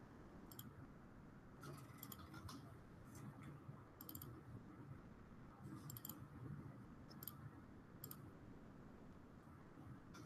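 Near silence: low room hum with faint, irregular clicks of computer keys and mouse buttons, roughly one every second.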